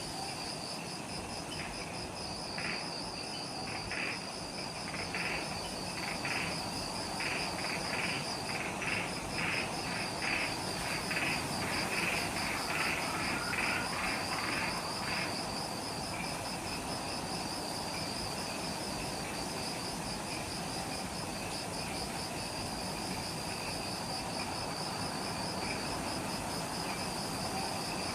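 Insects calling in the forest: a steady, rapidly pulsing trill goes on throughout. A second, lower call sounds in short repeated bursts that come faster and faster, then stops about halfway through.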